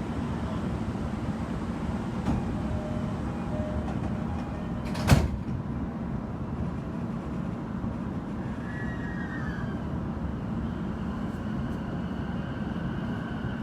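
Inside a JR E233-series electric train: steady running noise with one sharp clunk about five seconds in. The rider takes it for something on the bogie, perhaps a tread-brake cylinder, being slow to release.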